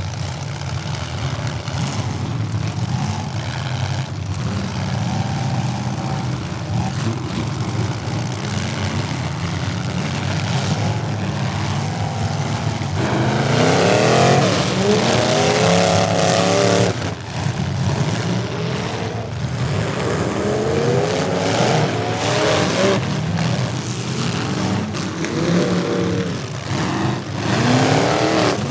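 Several demolition derby car engines revving hard at once, pitch sweeping up and down as the drivers throttle and shift. The revving is loudest about halfway through and again near the end.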